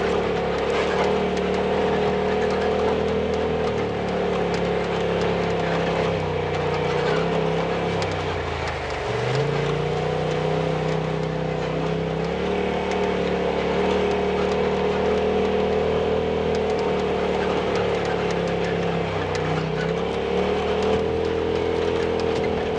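Off-road vehicle's engine running at a steady pitch under way. About eight seconds in, the revs drop briefly, then climb back and hold.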